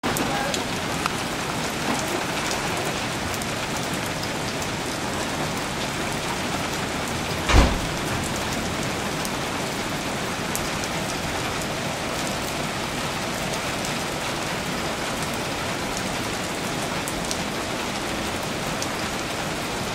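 Steady heavy rain falling and pattering on surfaces and standing floodwater, with scattered small ticks of individual drops. A single loud thump about seven and a half seconds in.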